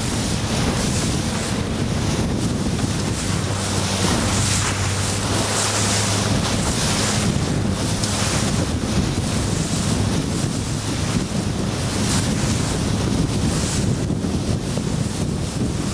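Strong wind buffeting the microphone over rushing, splashing water as a RIB bounces through choppy water in about 20 knots of breeze. A low, steady motor hum runs underneath, clearest in the first half.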